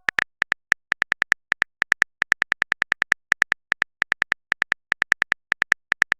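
Rapid phone-keyboard typing clicks, short sharp ticks coming irregularly at several per second.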